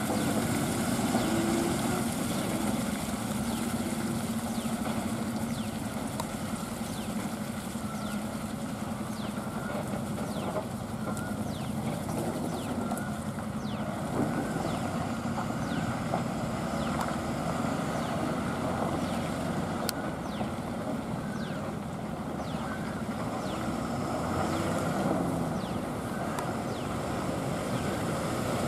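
Ashok Leyland tipper truck's diesel engine running steadily as the loaded truck moves slowly over a wet, potholed road.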